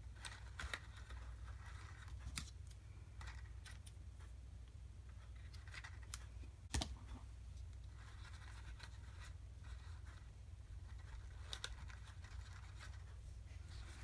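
Faint rustling and light taps of a folded-paper treat box and twine being handled while a bow is tied, with a sharper click a little before halfway.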